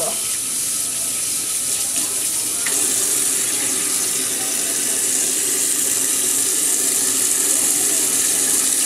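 Tap water running steadily from a faucet into a stainless-steel sink, at first splashing over rinsing hands, then a little louder from about three seconds in as the stream falls straight onto the sink bottom by the drain.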